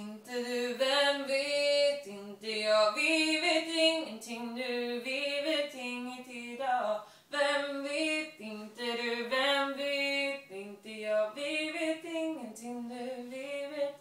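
A woman singing a cappella, with no accompaniment: a melody of long held notes in phrases, with short breaks for breath between them.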